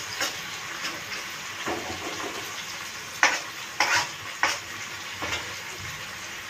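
Spatula stirring in a non-stick wok while onion and ground shallot-garlic paste fry in hot oil: a steady sizzling hiss broken by about six sharp scrapes and knocks of the spatula against the pan.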